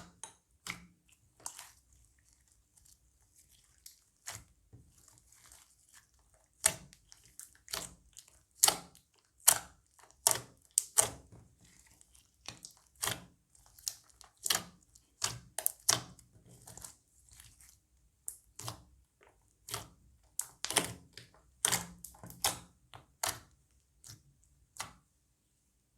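Crunchy slime being squeezed and pressed by hand: a run of sharp crackling pops and clicks, irregular, about one to two a second, with short quiet gaps.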